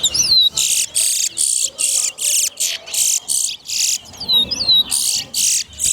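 Towa towa finch (large-billed seed finch) singing its competition song. A few whistled notes slide up and down, then a fast run of harsh, buzzy notes comes at about three a second. The whistles and the buzzy run come back near the end.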